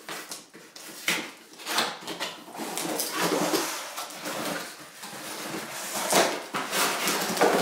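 Scissors cutting the tape on a cardboard box, then cardboard flaps and packaging scraping and rustling in a string of irregular sharp noises as the box is opened and unpacked.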